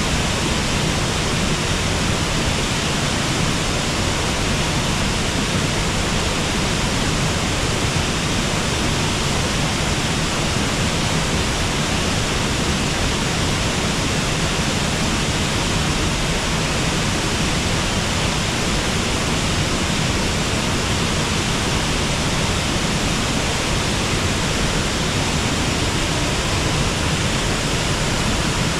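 Waterfall and river water rushing steadily, an even unbroken noise.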